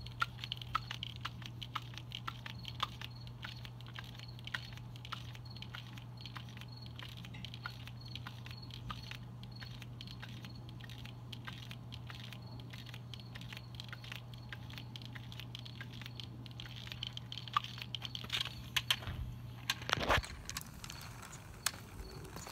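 Irregular small crackles and rustles of handling noise over a steady low hum, with a louder burst of rustling near the end.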